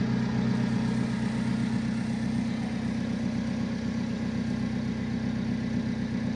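Alfa Romeo 4C Spider's 1750 turbocharged four-cylinder engine idling steadily.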